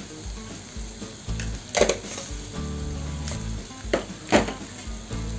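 Thick onion-tomato masala paste frying in a kadai, sizzling, with about four sharp spattering pops as it bubbles.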